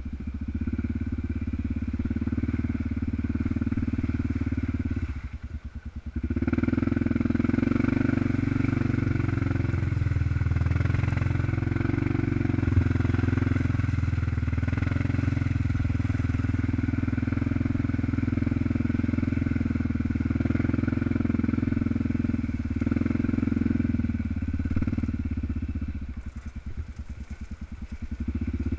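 Honda Rincon ATV's single-cylinder four-stroke engine running steadily on the throttle. It drops twice to a lower, slower pulsing, about five seconds in and again near the end, before picking back up.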